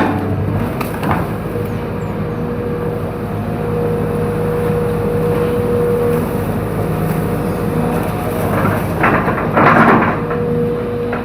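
Hydraulic excavator's diesel engine running steadily with a faint steady whine over it. About nine seconds in, a loud burst of cracking and splintering as bamboo is crushed.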